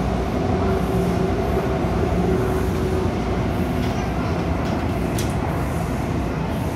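Interior of a CAF-built MTR Tung Chung Line train running: a steady rumble from the wheels and running gear, with a humming tone that fades out about halfway through. A single short click comes about five seconds in.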